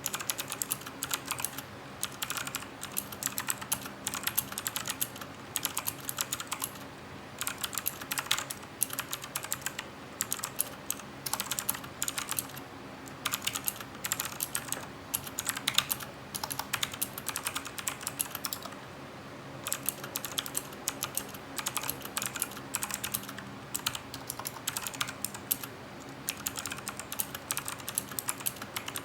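Typing on a Cooler Master CK350 mechanical keyboard with clicky Gateron Blue switches: fast runs of key clicks broken by brief pauses, the longest about two-thirds of the way through.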